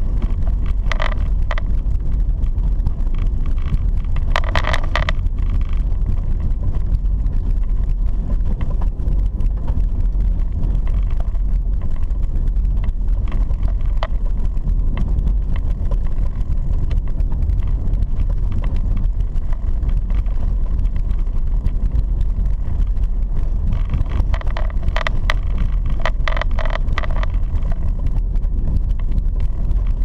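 Car driving on an unpaved dirt road, heard from inside the cabin: a steady low rumble of tyres and engine. A few short clatters come about a second in, around four to five seconds in, and again around 25 to 27 seconds in.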